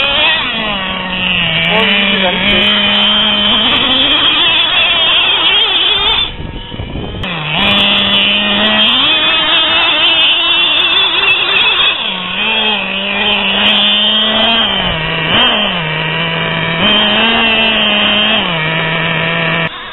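Small nitro engine of a Traxxas Revo 2.5 RC truck running hard, its pitch rising and falling with the throttle, with a short drop-off about six seconds in.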